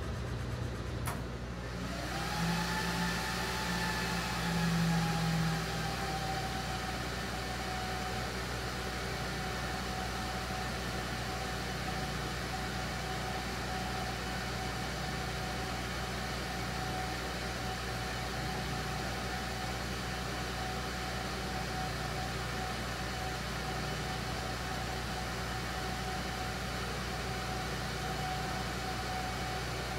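Thunder Laser Nova PLUS 35 CO2 laser cutter running while it cuts acrylic: a click about a second in, then a motor spins up to a steady whine over a low hum and runs on evenly.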